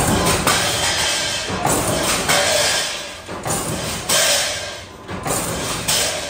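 A large thin steel sheet wobbling and scraping as it is handled and slid onto the bed of a sheet-metal shear, in a string of sudden surges that each fade quickly, some with a faint metallic ring.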